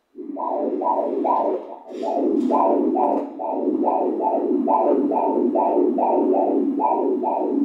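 Ultrasound Doppler audio of a fetal heartbeat: fast, even pulses about two and a half a second, starting suddenly.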